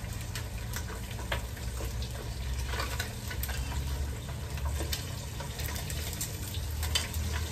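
Fish frying in hot oil in a deep pot, the oil sizzling with scattered crackles and pops, over a steady low rumble.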